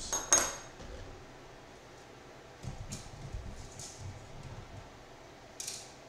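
A small metal object drops onto a hard surface with a sharp clink and a short high ring, followed by a few light clicks and taps of handling.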